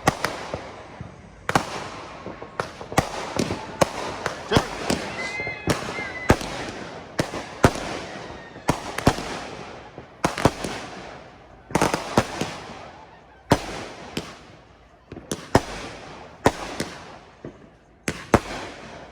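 Consumer fireworks going off one after another: many sharp bangs, at times several in a second, each trailing off in a crackling, echoing decay.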